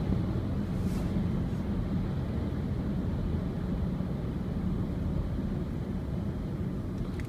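Steady engine and tyre noise inside the cabin of a Skoda Octavia Scout 1.8 TSI travelling at about 75 km/h: an even low rumble with a steady hum.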